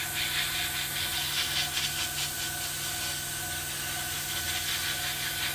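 Airbrush hissing steadily as it sprays paint at low pressure, about 8 to 10 psi, over a steady hum.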